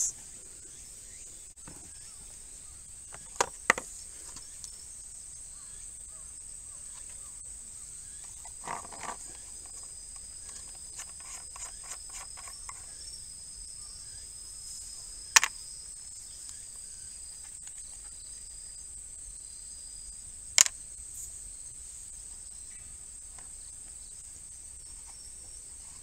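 Insects keep up a steady high-pitched drone. Over it come a few sharp plastic clicks and knocks as the tyre repair kit's compressor case and caps are handled: a pair about three and a half seconds in, and single loud ones around the middle and about three-quarters of the way through.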